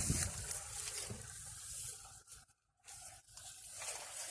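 Rustling and scuffing of footsteps moving through grass and debris, with handling noise on the camera microphone. The sound cuts out briefly a little past halfway.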